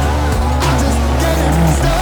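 Background music: a song with a sung vocal over drums and a heavy, steady bass.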